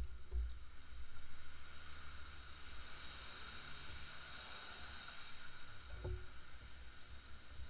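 Low, uneven rumble of wind or handling on the microphone over a steady high background hiss, with a single soft knock about six seconds in.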